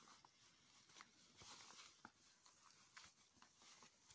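Faint rustling and small crinkles of a plastic reusable bag-for-life shopping bag being folded and pressed flat by hand, with scattered soft ticks from the material.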